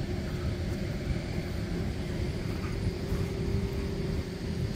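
Outdoor airfield background noise: a steady low rumble with a constant droning hum running through it.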